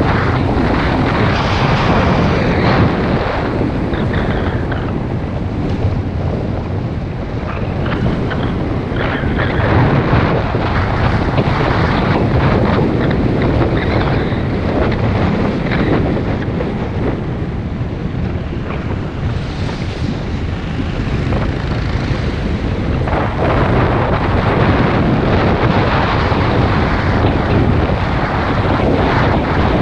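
Loud, steady wind rush buffeting the microphone of a camera on a moving vehicle, with road noise underneath.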